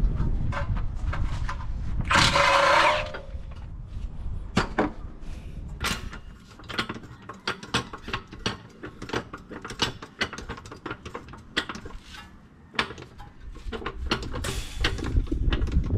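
Hand socket ratchet clicking in runs on the front suspension bolts. There is a loud burst of about a second just after two seconds in and a shorter one near the end, typical of a cordless impact wrench.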